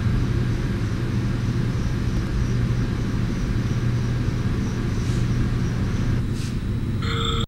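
A steady low rumbling drone with an even hiss over it. About seven seconds in, several high steady electronic tones come in.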